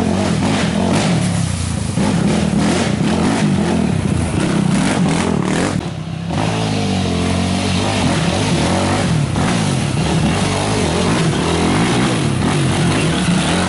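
Racing quad (ATV) engines revving hard, the pitch rising and falling with each change of throttle, with a brief drop in revs about six seconds in.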